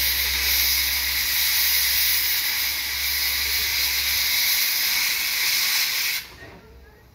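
Steam hissing steadily from the cylinder drain cocks of the wood-fired steam locomotive John Molson. The hiss cuts off suddenly about six seconds in.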